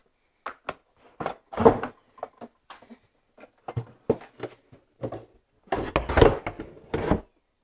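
The plastic top cowling of a Mercury 90 hp outboard being unlatched and lifted off: a string of hard clunks and knocks, with a louder run of clattering about six seconds in.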